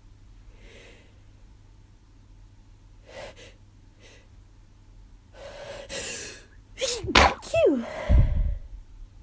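A person sneezing. A few faint breaths, then a long gasping in-breath about five and a half seconds in. It ends in a loud sneeze with a falling voiced cry around seven seconds, and a second sharp burst about a second later.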